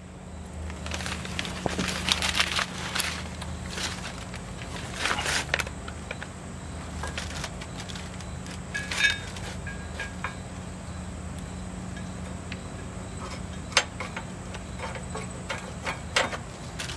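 Scattered clinks, knocks and scrapes of a metal push-bar mounting bracket being handled and worked onto a bolt in a pickup's frame, with a short ringing metallic ting about nine seconds in and a sharp click near the end. A steady low hum runs underneath.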